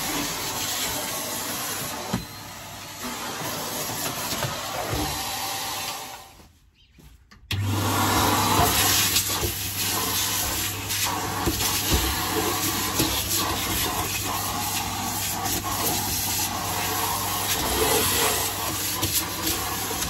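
Henry canister vacuum cleaner running with a steady rushing noise as it sucks sand and grit from the van's carpet. The sound fades almost to nothing about six seconds in, then returns abruptly a second and a half later with a steady low hum.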